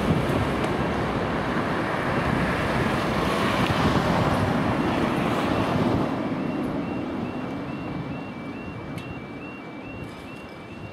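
Cars and a van driving through over a level crossing, loudest in the first half. From about six seconds in, as the barriers come down, the crossing's yodel alarm warbles about twice a second over the fading traffic.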